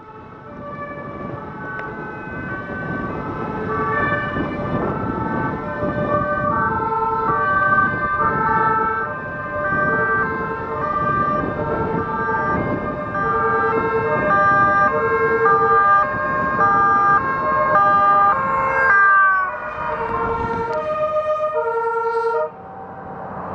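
Several Dutch fire service vehicles approaching at speed with two-tone sirens sounding out of step with each other, over growing engine and tyre noise as they close in. About 19 s in, one siren's pitch slides down as a vehicle passes, and the sound cuts off sharply near the end.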